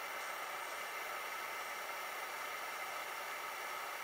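Steady hiss with a few faint steady tones underneath and no distinct events: background noise while soldering.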